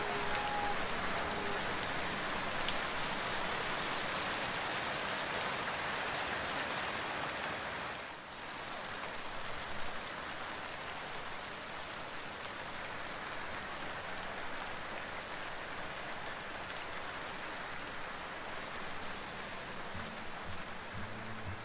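Steady hiss of car tyres on rain-wet asphalt while driving, with no engine note standing out. The hiss dips briefly about eight seconds in, then carries on a little quieter.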